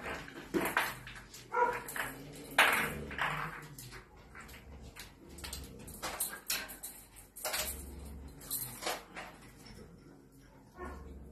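Catalan sheepdog puppies playing: irregular knocks, clatters and scrabbling of paws and toys on the tiled floor, with a short yip about a second and a half in.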